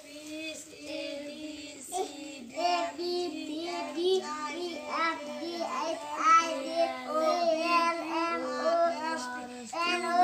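A child's voice singing a sing-song melody in short held notes that step up and down.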